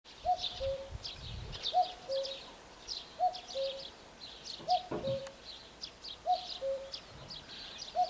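Common cuckoo singing its two-note 'cuck-oo', the second note lower, repeated about every second and a half. Small songbirds chirp in the background.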